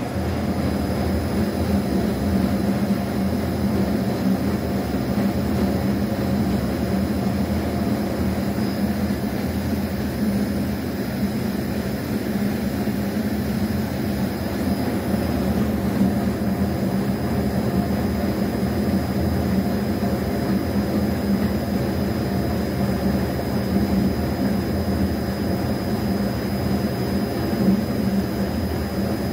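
Flexible screw (spiral) feeder switching on abruptly and running steadily, a continuous mechanical hum with a low drone and faint high whine, as the spiral draws dark granules out of its stainless steel hopper.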